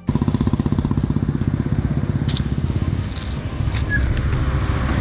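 Bus engine running with a fast, even throb as the bus drives past on the road.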